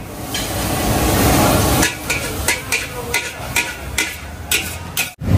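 Metal ladle clanking and scraping against a hot steel wok, about three strikes a second from about two seconds in, over a steady hiss of frying.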